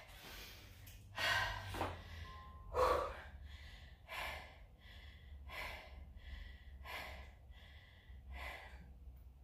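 A woman breathing hard, drawing quick, audible breaths in and out about once a second: catching her breath after a hard round of push-ups and knee tucks.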